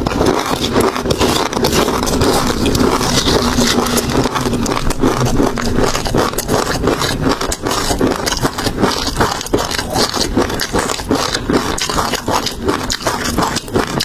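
Close-miked eating sounds of seafood: dense, rapid crackling and crunching from chewing, with many small clicks and wet scrapes.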